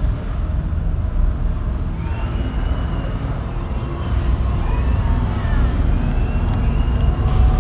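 Deep, steady rumble played over an arena PA, with faint rising and falling high tones drifting over it.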